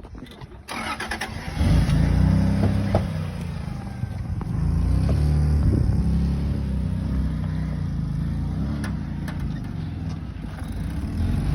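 Four-wheel-drive vehicle's engine running at low revs under load as it crawls through a tight trail obstacle. The engine comes in loud about two seconds in and holds on, its pitch shifting a little as the throttle changes.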